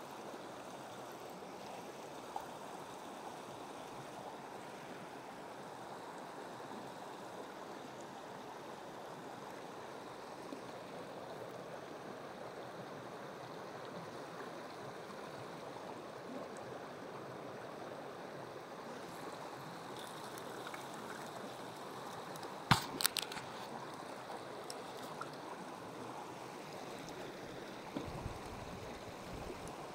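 Small mountain creek running over rocks and through riffles, a steady rush of water. A brief cluster of sharp clicks or knocks about three-quarters of the way through.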